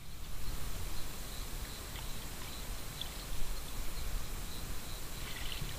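Steady lakeside outdoor background noise with a low rumble, and a few faint, brief high chirps of small birds.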